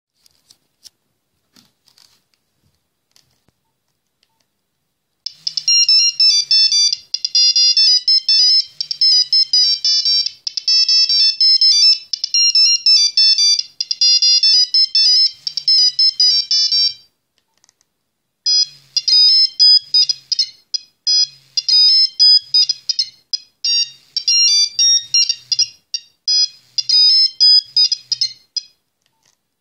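Nokia 3410 mobile phone playing two monophonic ringtone melodies one after the other through its small loudspeaker, each a fast run of high beeping notes. The first tune starts about five seconds in and stops a second or so before the second begins; a few faint clicks come before the first.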